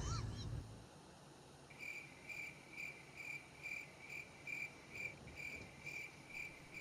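Cricket chirping: a faint, even run of short high chirps, a little over two a second, starting about two seconds in.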